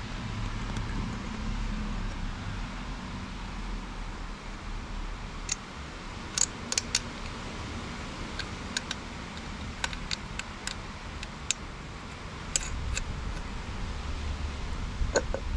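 Light, irregular metal clicks and taps, starting about a third of the way in, as nuts are fitted onto the studs holding the thermostat housing (lower water outlet) to a 2JZ engine's water pump. A low steady rumble runs underneath.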